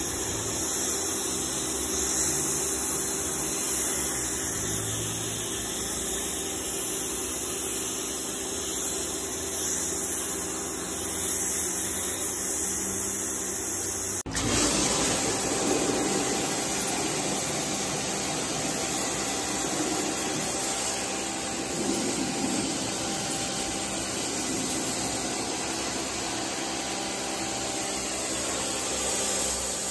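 Electric pressure washer running, its pump drone under the hiss of the water jet spraying a foamed, degreaser-soaked car floor carpet. The sound shifts abruptly about halfway through.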